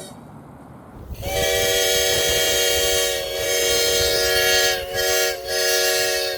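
Homemade plastic-straw five-chime train horn, built to imitate a steam whistle, sounding one long chord of five notes that starts about a second in and dips twice briefly near the end. Water sprayed into its bell throats gives it the steam-whistle effect.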